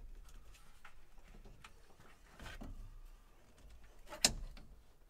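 Hand tools working on a car battery terminal clamp: faint scraping and small clicks, then one sharp metal clink about four seconds in as the clamp is pried loose.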